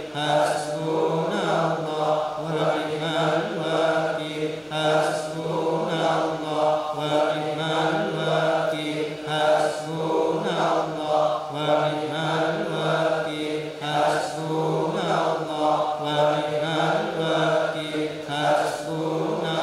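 Sufi dhikr chanted by voices, a short phrase repeated over and over in a steady rhythm above a held low drone.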